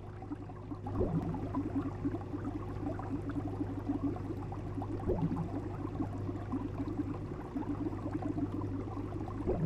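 Fish-tank water ambience: a steady low hum under continuous bubbling and gurgling water, with a short rising bubble sound about every four seconds.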